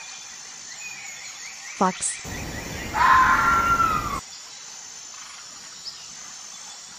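A fox call played once: a noisy cry about two seconds long with a pitched note that falls away at its end, starting about two seconds in, over a faint outdoor background of high chirps.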